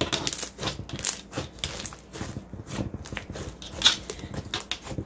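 Thick, rubbery slime with sand grains mixed in being kneaded and stretched by hand. It gives a run of irregular small crackles and pops.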